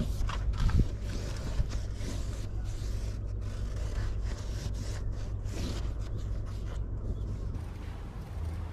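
A 1 mm felt sheet being handled, smoothed and pressed into place, with scraping and rustling that come and go and a couple of soft bumps in the first two seconds. A steady low rumble runs underneath.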